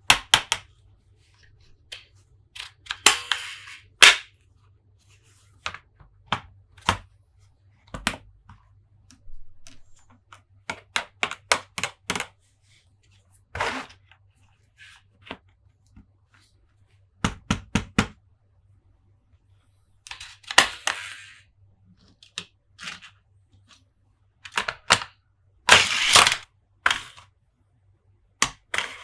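Hands handling plastic Monster Jam toy trucks and playset pieces: irregular taps, clicks and knocks, with a few short scraping bursts.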